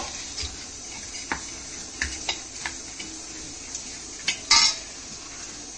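A steel spoon stirring and scraping a dry mixture of ground roasted coriander and coconut in a stainless steel bowl, with scattered clinks of spoon on metal. There is a louder clank about four and a half seconds in.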